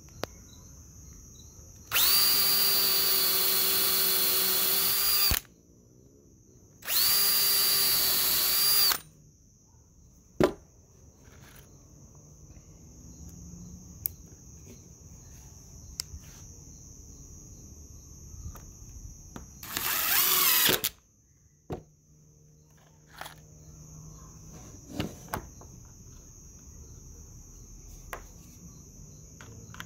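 Cordless drill running at a steady speed in bursts, boring countersunk pilot holes into a pine board for screws: two long runs of a few seconds early on, and a shorter run later, with small clicks of handling between them.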